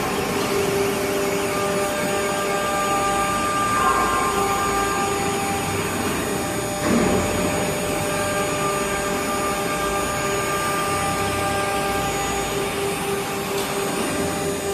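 9 kW HQD air-cooled spindle of a CNC router running with a steady whine made of several tones over a rushing noise as its bit routes a board. There is a brief louder burst about seven seconds in.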